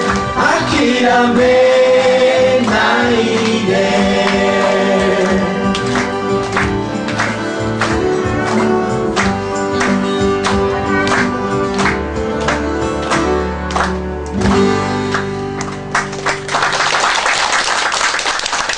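A group of voices singing a song together with instrumental backing. From about six seconds in a steady beat runs under the voices, and near the end the song gives way to a loud noisy wash.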